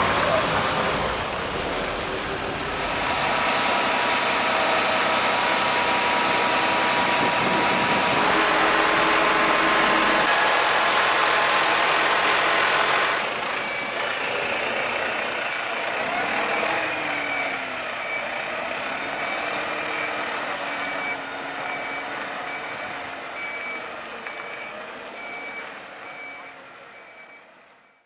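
Truck-mixer concrete lorry running loud for about the first 13 seconds. Then a reversing alarm beeps about once a second over the truck's engine, and the sound fades out near the end.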